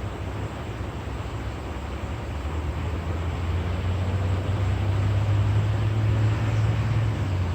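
A low, steady mechanical hum that swells about halfway through and eases near the end.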